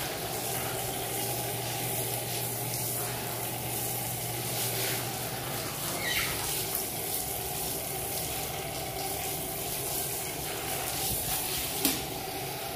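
Handheld shower spraying water onto a person's back and body: a steady hiss of running water and spatter. It is the rinse after the body scrub, before soaping, and it stops right at the end.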